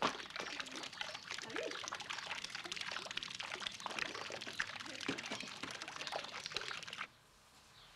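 Garden fountain's thin jet of water falling back into its pool, a steady splashing patter that cuts off suddenly near the end.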